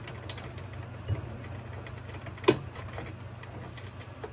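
Nut driver turning the small nuts that hold a bill validator in a vending machine door: light metallic clicks and scrapes, with one sharper click about two and a half seconds in. A steady low hum sits underneath.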